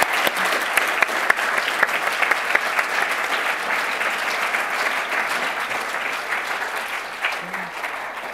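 An audience clapping together in sustained applause, a dense patter of many hands that thins slightly near the end.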